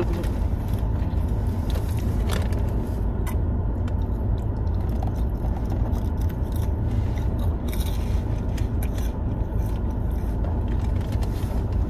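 A thin plastic water bottle crackling and clicking now and then as it is handled and drunk from, over a steady low rumble in a car cabin.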